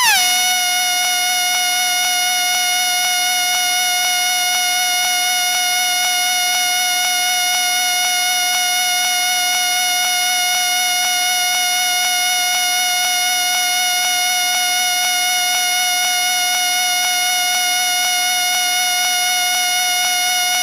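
A whistle sounding one long, steady, shrill note. The pitch slides down briefly as it starts.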